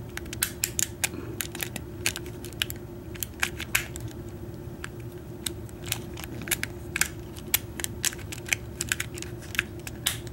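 Irregular small metallic clicks and ticks of a tool probing inside a motorcycle ignition's wafer-lock cylinder, trying to catch the retaining wafer at the back so the cylinder can be pulled out.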